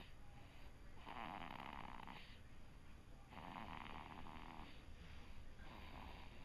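Soft snoring during sleep: three rasping snores, each a little over a second long, coming about every two seconds in a steady breathing rhythm.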